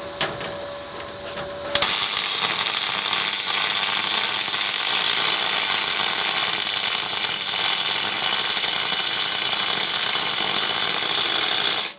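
MIG welding arc from an R-Tech MIG180 inverter welder's spool gun, running 1 mm aluminium wire on 6 mm aluminium plate. The arc strikes about two seconds in, gives a steady hiss and crackle for about ten seconds, and cuts off sharply near the end. The setting is one the welder judges decent and well burned in.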